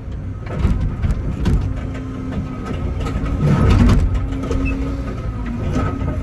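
Excavator's diesel engine running steadily, with a few knocks and a louder rough surge about three and a half seconds in.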